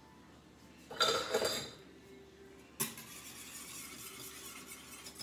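A clatter of kitchenware about a second in, then a sharp clink near three seconds in, followed by a spoon stirring and scraping in a ceramic bowl of thick, undiluted cream-soup sauce.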